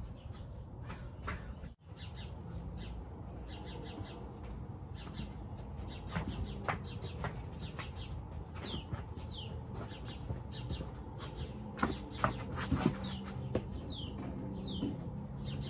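Small birds chirping: many short, high, falling chirps, sometimes several in quick succession, over a low steady background rumble, with a few soft knocks in places.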